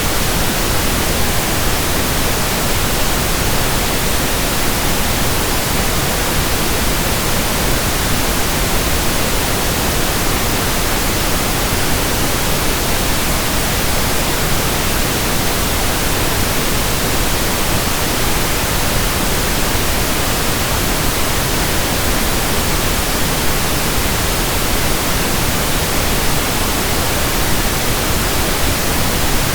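Steady pink noise: an even, unchanging hiss spread across the whole range, with no breaks.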